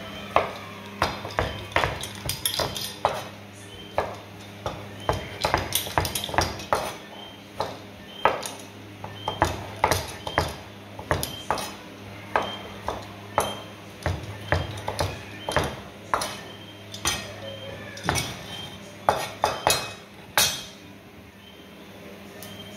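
A chef's knife chopping tomatoes on a plastic cutting board: repeated, irregular knocks of the blade striking the board, a few each second, pausing briefly near the end. A steady low hum runs underneath.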